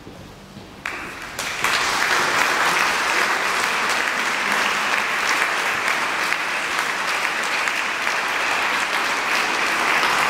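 Concert audience applauding in a large hall. The applause starts about a second in, swells quickly and holds steady.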